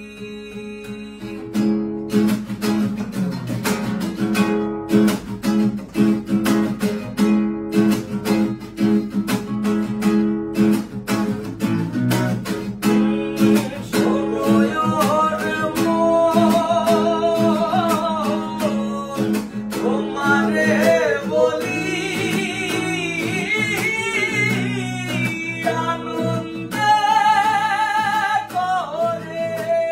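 Two acoustic guitars, a steel-string and a nylon-string classical, strummed together in a steady rhythm. Men's voices come in singing about halfway through, two voices by the end.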